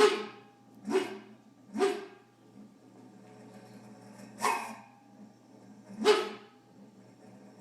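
Freezer compressor letting out five short bark-like yelps over its steady hum, two close together then spaced a second or two apart, with some calls higher than others. The noise is the sign of a failing compressor that the owner expects to give out soon.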